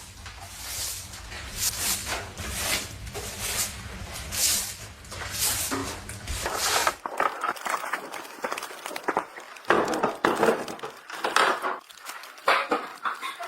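Footsteps crunching in snow, about one a second, over a low wind rumble; about seven seconds in these give way to irregular knocks and rustling handling noises.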